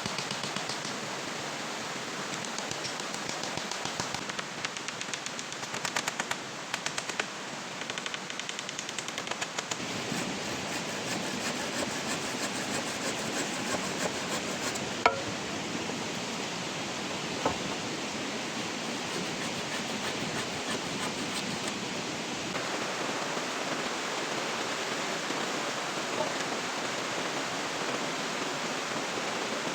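Steady rushing water noise, with a run of quick light ticks in the first third and two sharp clicks about halfway through.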